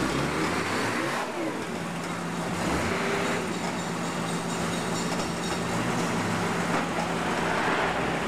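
Forklift engines running with a steady hum. One engine revs up and back down within the first second or so.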